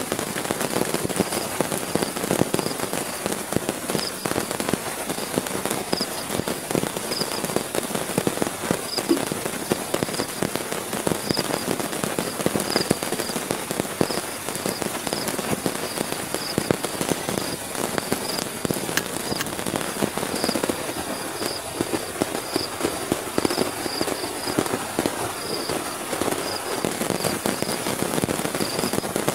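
Heavy rain pattering on a tent's fabric, a dense, steady crackle of countless drops, with irregular high-pitched chirps over it.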